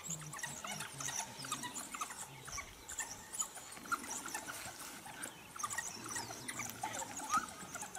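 A pack of African wild dogs gives many short, high-pitched twittering chirps, with a low, repeated pulsing sound beneath them.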